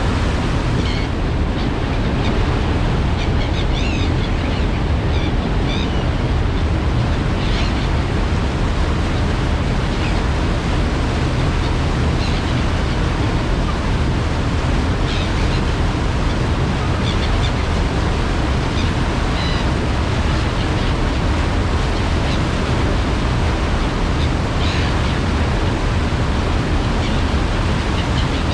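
Passenger ferry under way: a steady rush of water and wind over a constant low rumble.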